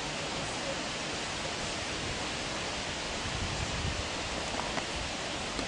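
Steady, even rushing noise that holds at one level throughout.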